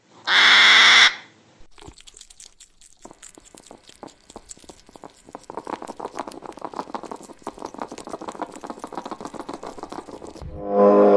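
A porcupine gnawing and chewing a raw sweet potato: quick, irregular crunching and crackling bites. It opens with a short, loud burst of hissing noise, and a loud pitched roar-like call starts just before the end.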